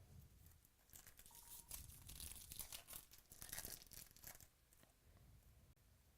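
Foil trading-card pack wrapper being torn open and crinkled: a faint run of crackly rustling with small clicks from about a second in, dying down after about four and a half seconds.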